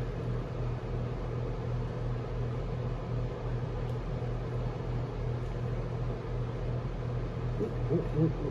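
Steady machine hum with an even low pulsing underneath, from the paint-booth equipment.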